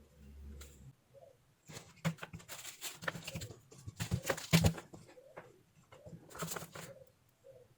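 Irregular clicks and scraping of hand tools working on a power-supply circuit board, with the loudest knocks between about two and five seconds in.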